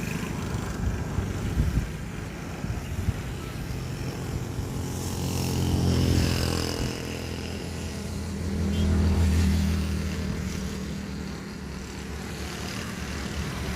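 Road traffic with a steady engine hum, as two motor vehicles pass close by, one about six seconds in and another about nine seconds in, each swelling and fading.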